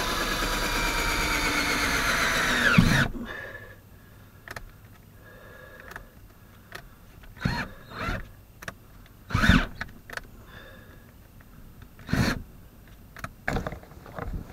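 Cordless drill running under load as it bores up through the van's steel roof, a steady motor whine for about three seconds that winds down as the drill stops. After that come several scattered sharp knocks and clunks.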